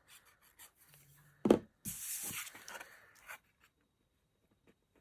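Die-cut cardstock pieces being handled on a craft table: a sharp knock about one and a half seconds in, then a second or so of card rustling and sliding.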